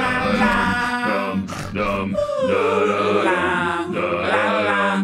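A cappella male voices, one man's voice multitracked into several parts, singing held chords with no instruments. One voice glides downward about two and a half seconds in.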